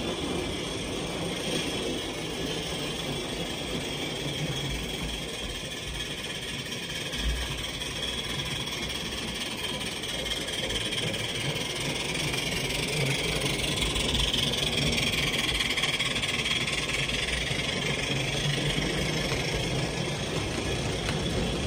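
G-scale model train running along the layout track, a steady rumble of wheels on rails that grows a little louder as the train passes close.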